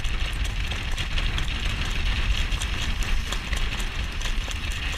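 Rolling noise of a horse-drawn jog cart at a trot: wind buffeting the cart-mounted camera as a heavy, uneven low rumble, with wheel and road noise and faint, rapid clicks of hooves.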